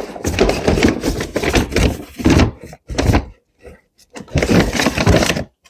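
Rustling and crinkling of packaging as items are pulled out of a cardboard meal-kit box, in irregular bursts with short pauses and a few knocks.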